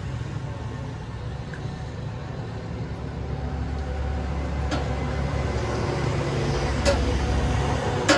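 Road traffic rumbling, growing louder through the second half as a vehicle passes close, with three short sharp clicks.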